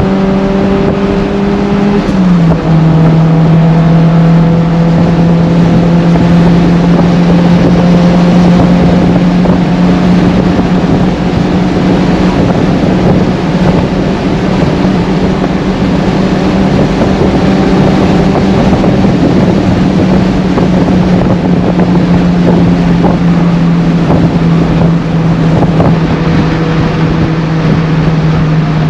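VW Golf 1's 1.8 16-valve engine on twin Weber carburettors with a Supersprint exhaust, heard loud from inside the cabin at motorway speed. Its steady drone drops in pitch once about two seconds in as a higher gear goes in, then holds steady under wind and road noise.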